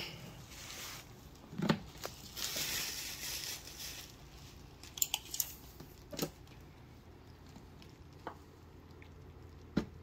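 Bubble wrap crinkling and rustling under handling while a tape measure is pulled out along a doll, in two stretches near the start and about two to four seconds in, with a few sharp clicks and taps scattered through.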